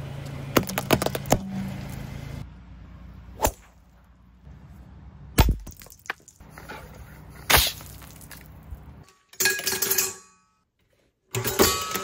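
A run of separate smashing sounds: small plastic Rubik's cubes cracking and crunching under a car tyre over a low engine hum, then sharp single hatchet strikes into a wooden chopping block. Near the end comes a short machine whir.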